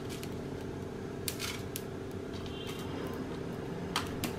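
Dry whole spices and dried red chillies rustling and scraping in a dry frying pan as a wooden spatula stirs them, in a few short strokes about a second in and again near the end, over a steady low hum.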